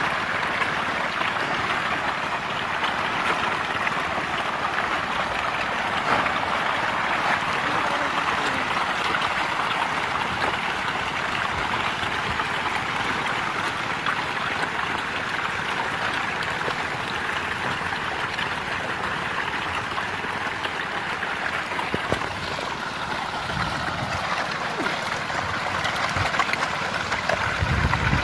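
A dense school of fish thrashing at the water's surface, giving a continuous churning splash and gurgle. A low rumble joins in near the end.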